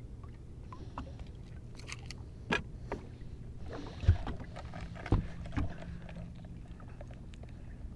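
A few knocks and clunks on a fishing boat over a steady low hum, the loudest a little after halfway.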